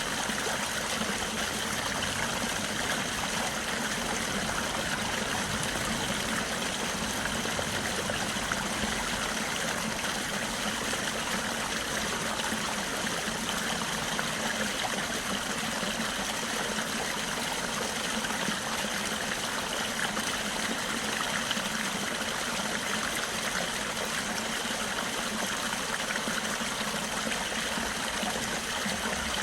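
Flowing stream water running steadily, without a break.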